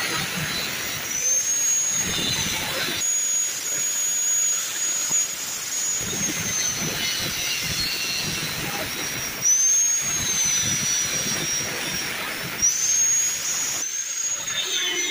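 Handheld angle grinder with a thin cut-off disc cutting through a square hollow steel tube: a hissing, grinding cut under a high motor whine that rises and falls in pitch several times as the disc is worked through the notches.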